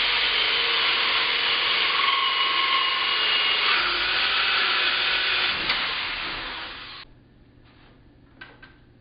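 Power drill boring a hole through a piece of wood, running steadily and then cutting off suddenly about seven seconds in. A few faint clicks follow.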